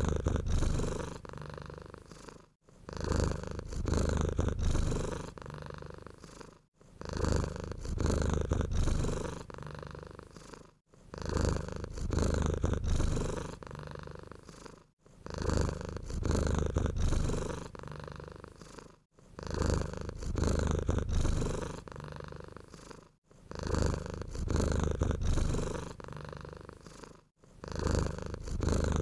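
Domestic cat purring close up. The same stretch of about four seconds repeats identically over and over, each repeat starting loud and tailing off, with a short drop-out between repeats.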